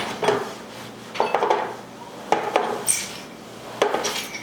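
Dishes and glassware clinking and clattering in a handful of short bursts, as spilled water and a glass are cleaned up from a table.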